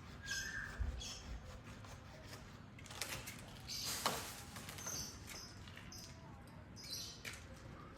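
Small birds chirping in short, scattered calls over faint background noise, with a brief burst of noise about halfway through.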